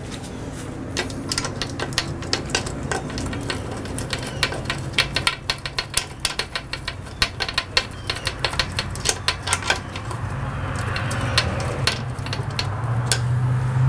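Ratchet wrench with a 12 mm socket clicking in quick runs as it turns a bolt into an outboard's lower unit. The clicks thin out after about ten seconds while a steady low hum grows louder.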